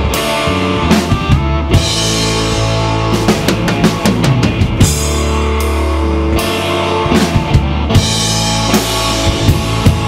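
Rock band playing an instrumental passage on electric guitar, electric bass and drum kit, with steady drum beats and cymbal hits.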